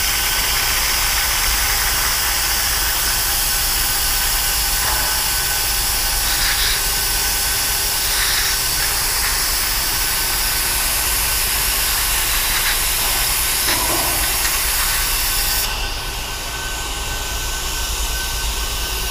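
Air-powered vacuum brake bleeder hissing steadily, with a faint whistle, as it sucks the old brake fluid out of a Harley Sportster's front brake master-cylinder reservoir. The hiss drops off sharply about three-quarters of the way through.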